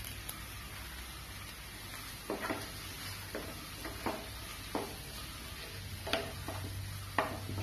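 Onion-tomato masala with boiled eggs sizzling steadily in a nonstick frying pan, while a wooden spatula stirs it, giving about eight short scraping strokes from about two seconds in.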